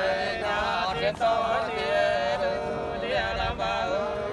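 Unaccompanied voice singing a Nùng sli folk song, long held notes that waver and bend in pitch.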